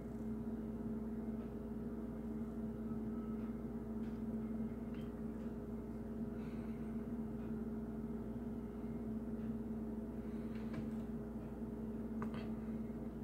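Steady low electrical hum in a small room, one low tone with a fainter one an octave above, with a few faint clicks of a hard plastic parts sprue being handled, mostly near the end.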